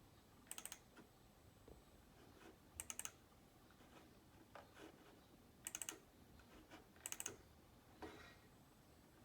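Faint computer keyboard typing: four short bursts of a few quick key clicks, a couple of seconds apart.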